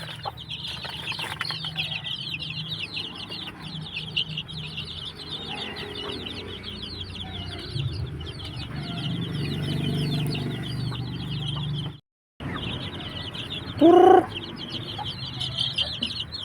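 A brood of chicks peeping continuously, many short high cheeps overlapping. The sound drops out for a moment about twelve seconds in, and a short louder call rises above the peeping near the end.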